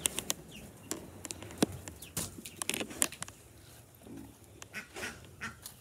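Scattered sharp clicks and knocks, with a few short bird chirps from the poultry.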